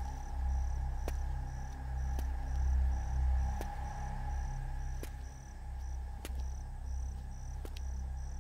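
Crickets chirping in a steady, even pulse of about two chirps a second over a low steady hum, with faint clicks roughly once a second.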